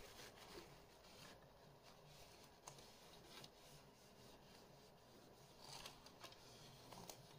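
Near silence with a few faint, light clicks and a soft rustle as a hand with a tissue works inside an opened plastic VHS cassette shell.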